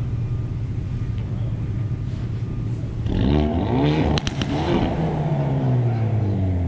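A car engine idling, then revved in a few quick blips about three seconds in, with two or three sharp cracks at the top of the revs. The revs then fall slowly back to idle.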